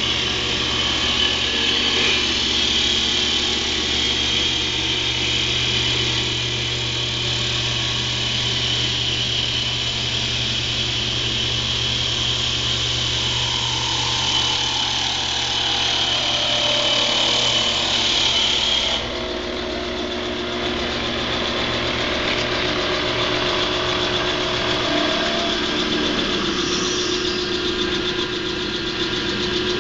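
MotionCat CNC wood lathe running as it turns a wooden spindle: a steady machine drone with a high whine over it. About two-thirds of the way through, the sound changes abruptly and the whine drops away.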